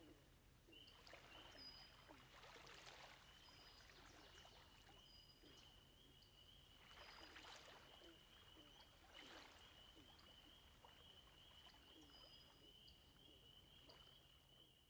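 Near silence: faint outdoor ambience, with a steady high wavering trill, occasional short high chirps and a few soft swells of rushing noise.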